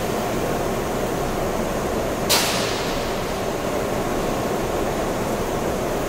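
Electric arc furnace running under power: the steady, dense crackling rush of the arcs, with one sharp crack about two seconds in.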